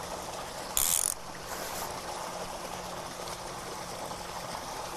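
Fly reel's click-and-pawl drag buzzing briefly about a second in as line is pulled off it, over a steady faint hiss.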